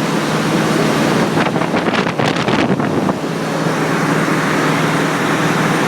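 Steady, loud machinery and ventilation noise aboard a ship, with a low hum under it. A run of irregular crackles or knocks comes about a second and a half in and dies away about three seconds in.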